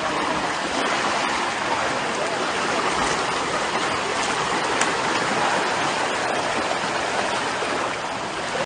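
Fast-flowing shallow river rushing and splashing steadily.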